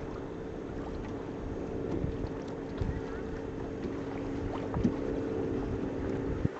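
A small boat's motor running steadily under wind noise on the microphone and the wash of water, with two sharp knocks, about five seconds in and just before the end.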